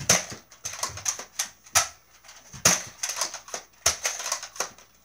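Nerf toy blasters being primed and fired: a rapid, irregular run of sharp plastic clicks and snaps, a few of them much louder than the rest.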